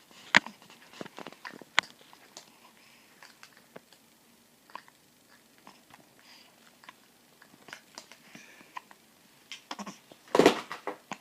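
A pet hiccuping: short, sharp hics and mouth clicks at uneven spacing, with a louder burst about ten seconds in.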